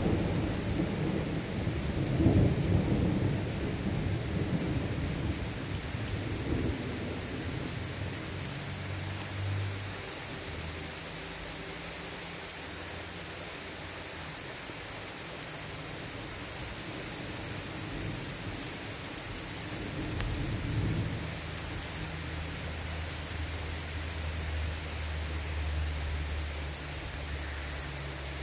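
Thunder rolling over steady rain: a loud low rumble in the first few seconds that slowly dies away, then a softer rumble about twenty seconds in, with the hiss of rain throughout.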